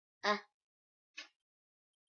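A child's single short vocal sound, a quarter second in, followed by a much fainter short sound about a second in, with quiet between.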